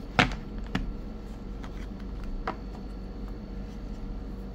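A few sharp taps and clicks from hands handling a Samsung Galaxy Z Flip 6 retail box and lifting the phone out of its tray. The loudest comes about a quarter second in, with others near one second and two and a half seconds.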